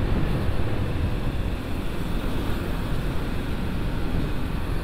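Steady wind rush over the microphone with the low rumble of a motorcycle and its tyres on the road, riding at speed.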